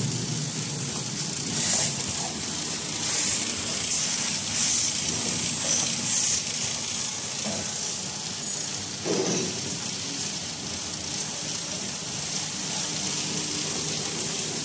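XY-AI-398F automatic multi-roll toilet paper film-bag packing machine running: a steady mechanical drone with a thin high whine. Short hisses come about every one and a half seconds during the first half.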